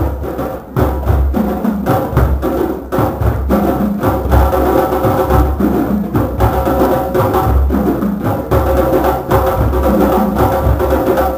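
Drum circle playing hand drums and percussion together in a steady, dense rhythm: many interlocking strokes over deep bass hits, with a sharp wood-block-like click on top.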